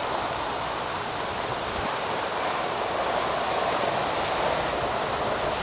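Steady hiss of distant highway traffic, swelling slightly in the middle and easing off again.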